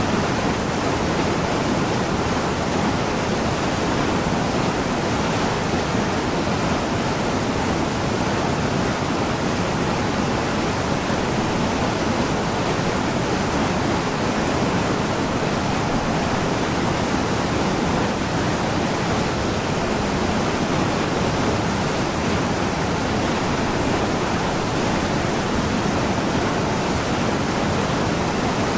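Mountain stream cascading over boulders in a small waterfall: a steady, unbroken rush of water.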